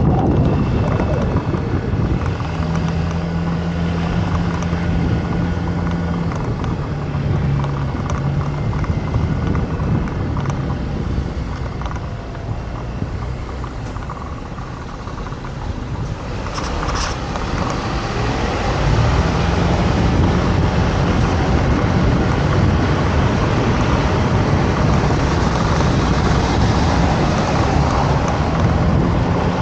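Motor scooter engine running under steady wind and road noise. The engine eases off about halfway, then picks up again with a rising note and runs on steadily.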